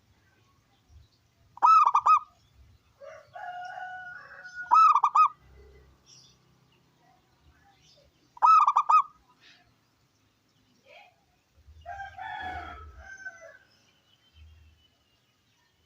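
Zebra dove (perkutut) singing: three loud, short, warbling coo phrases spaced about three seconds apart. Fainter calls of another bird come between them.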